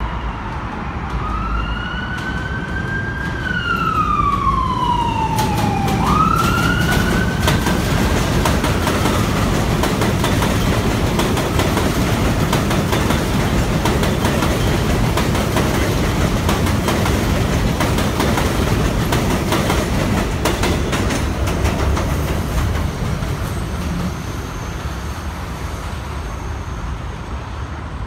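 An R62A subway train running into an elevated station: a steady rumble with rapid clacking of wheels over rail joints, loudest mid-way and fading near the end. Over the first eight seconds a siren wails over it, its pitch rising, sliding down, then jumping back up.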